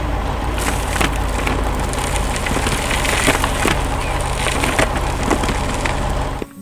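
Sound effects of a heavy construction machine's engine running with a steady low hum, with irregular cracking and crunching clicks over it.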